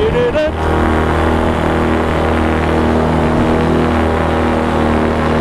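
Paramotor engine and propeller running steadily at flight power, a constant drone with even, unchanging pitch. A brief warbling, voice-like sound overlaps it just at the start.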